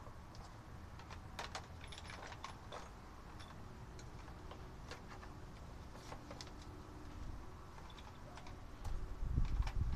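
Small metal air-hose fittings clicking and clinking as a hand rummages through them in a plastic parts box, in scattered light taps. A short low rumble comes about nine seconds in.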